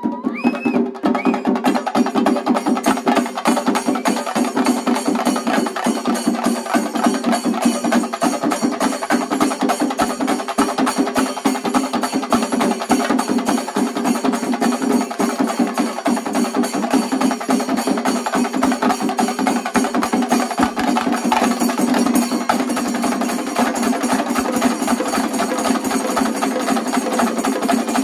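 Shinkari melam ensemble: chenda drums beaten hard and fast with sticks, with ilathalam cymbals, in a dense, driving rhythm at a steady loudness.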